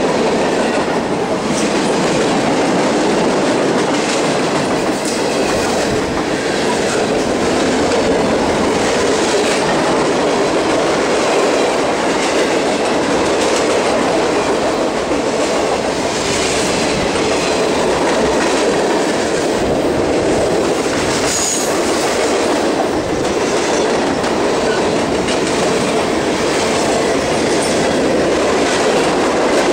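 Freight cars rolling past at close range: a steady loud rumble of steel wheels on the rails with clickety-clack over the rail joints. A short high wheel squeal comes about two-thirds of the way through.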